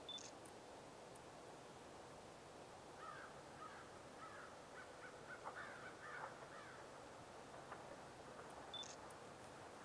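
Near silence with faint bird calls: a string of about eight short calls over some three seconds in the middle.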